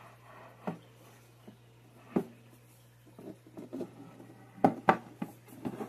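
Knocks, taps and clicks of a metal mooncake tin being handled on a wooden tray. There are a few single knocks at first, then a quick run of taps and clatter in the second half.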